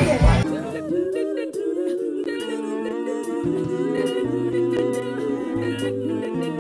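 Women's gospel vocal group singing in close harmony, holding long notes over a low held bass line. In the first half second, a louder burst of music with a beat cuts off.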